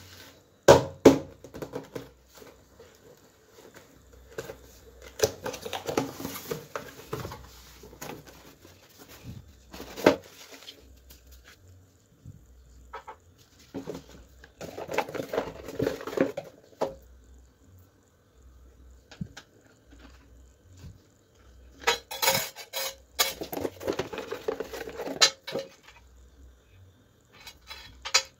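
Handling noise from unpacking a boxed Bluetooth speaker: cardboard box and packaging rubbed and opened, with several bursts of knocks, scrapes and rustling, and clatter as the speaker and its cable are handled on a hard tabletop.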